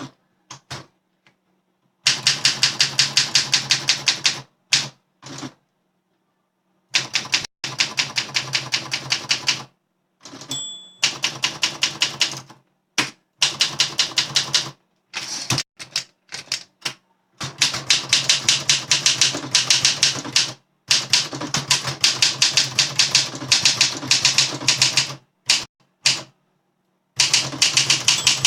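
Olympia SM7 manual typewriter being typed on, its typebars striking in quick runs of about six strokes a second with short pauses between runs. A brief ringing tone comes about ten and a half seconds in.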